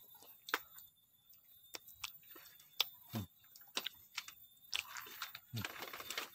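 Faint, scattered clicks and crunches of handling and movement among durian husks and dry litter, irregular and spread through the stretch.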